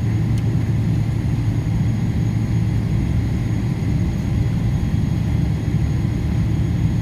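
Steady low rumble of airliner cabin noise while the aircraft taxis, the jet engines and cabin air running evenly, with a faint steady whine above it.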